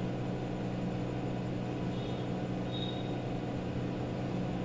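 A steady low hum throughout, with a felt-tip marker squeaking faintly on a whiteboard twice, about two and three seconds in, as it writes.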